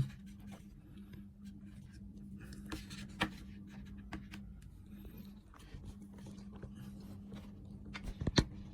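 Light handling noise: scattered small clicks and taps as a battery and multimeter are picked up and set down, with a cluster of sharper clicks near the end over a faint steady hum.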